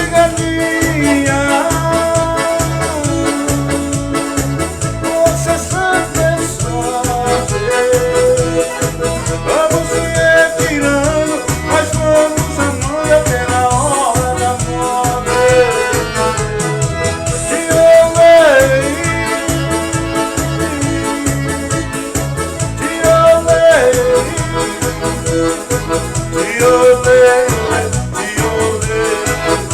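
Live forró music: accordion carrying the melody over a steady, driving beat of bass and percussion.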